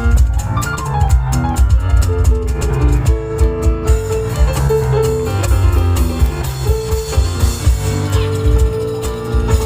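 Live instrumental music: piano playing over a fast, driving rhythm of cajón beats and rapid tambourine jingles.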